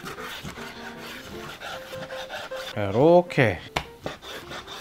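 Chef's knife slicing raw chicken thigh on a bamboo cutting board: repeated sawing strokes, the blade rasping through the meat and scraping against the wood.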